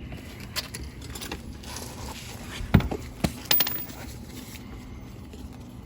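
Scattered clinks and knocks of hand tools and metal parts being handled, a few short sharp hits with the loudest about three seconds in.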